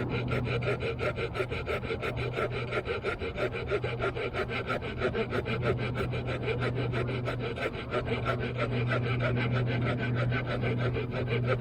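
Small folding wood-saw blade of a Victorinox Ranger Swiss Army knife cutting through a chunk of wood: rapid, even rasping strokes, with a steady low hum underneath.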